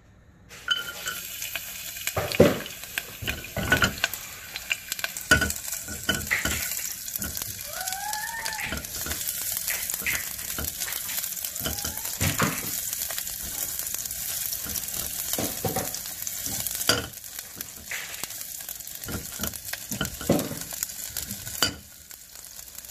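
Chopped garlic sizzling as it fries in hot oil in a saucepan, stirred with a silicone spatula that scrapes and knocks against the pot. The sizzle starts about half a second in, as the garlic goes into the oil, and turns quieter after about seventeen seconds.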